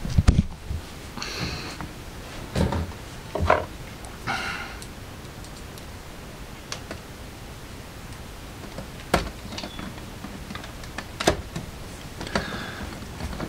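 Screws being driven into a plastic boombox case with a hand screwdriver, and the case being handled: scattered clicks and knocks with a few short scraping sounds, the sharpest clicks about nine and eleven seconds in.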